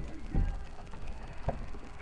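A few dull bumps and rustles of someone moving right up against the microphone: three short low thuds, about a second and a half apart at most.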